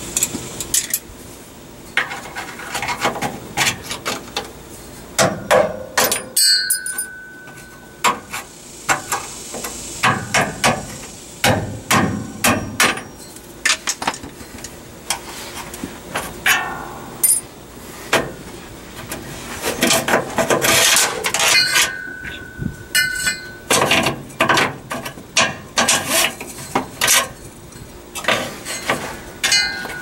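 Irregular metallic knocking, clinking and scraping as steel retaining clips are worked off a truck's parking brake cables and the cables are pulled free along the frame rail. A couple of the knocks leave a short metallic ring.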